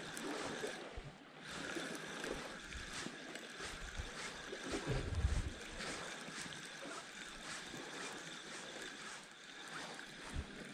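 Wind on the microphone over sea washing against the rocks, with a strong gust buffeting the microphone about five seconds in.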